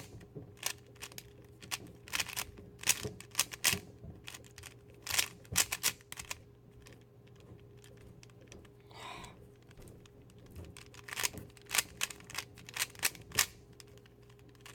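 3x3 Rubik's Cube being turned fast during a timed solve: irregular runs of plastic clicking and clacking as the layers snap round, with a sparser stretch of a few seconds midway.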